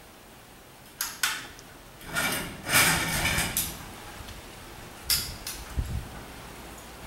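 Metal chain and rigging hardware being handled: a couple of sharp clanks about a second in, a longer rattling scrape from about two seconds to three and a half, and a few more clinks around five seconds.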